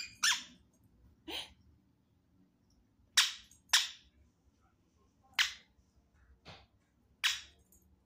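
Indian ringneck parakeet giving about seven short, sharp squawks at irregular intervals, each brief and harsh.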